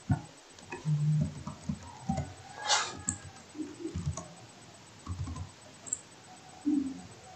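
Typing on a computer keyboard: irregular key clicks and soft thumps, with a brief hiss about three seconds in.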